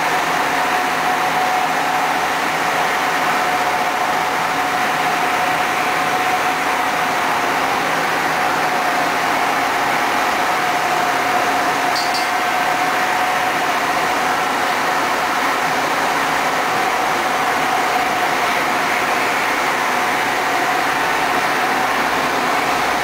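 Steady drone of ship and tugboat machinery with a constant mid-pitched hum running through it.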